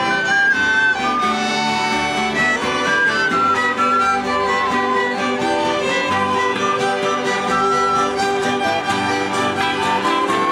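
A string ensemble of violins and acoustic guitars playing together, the violins carrying the melody over a steady strummed guitar rhythm.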